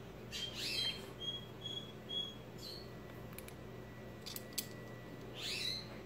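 Cockatiel chirping softly: a few quick sweeping calls and three short, evenly spaced whistled peeps, with a few faint clicks.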